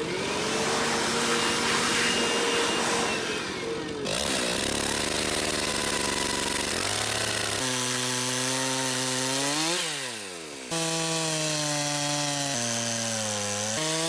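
A Stihl chainsaw cuts slices through a wood burl, the engine working under load with its pitch rising and falling as the throttle is worked. The saw drops back briefly about ten seconds in, then cuts again.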